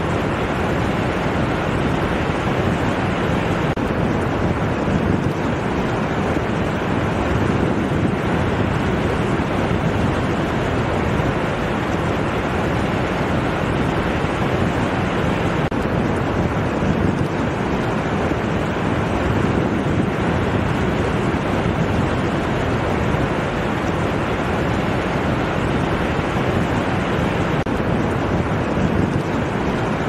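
Ocean surf washing onto a sandy beach: a steady rush of breaking waves and spreading water.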